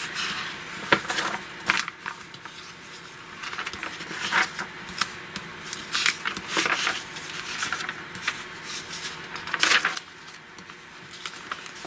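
Pages of a large-format 1960 Saturday Evening Post being turned by hand: several short papery rustles and flaps a second or more apart, with quieter handling of the paper in between.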